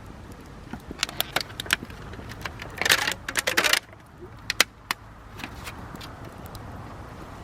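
Hinoki (Japanese cypress) firewood crackling in a campfire: irregular sharp pops and snaps, with a dense flurry of crackles about three seconds in that then thins out.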